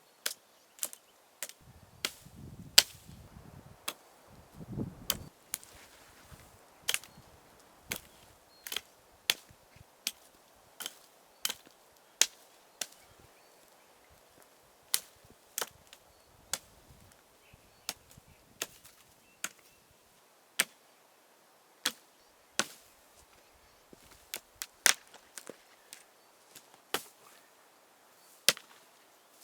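Axe chopping wood: a long run of sharp strikes, roughly one to two a second and unevenly spaced, with a brief low rumble a few seconds in.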